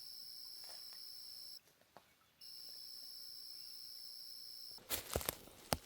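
Insects trilling steadily at dusk, a faint, continuous high-pitched buzz, which cuts out for under a second midway. Short rustles and knocks of handling come in near the end.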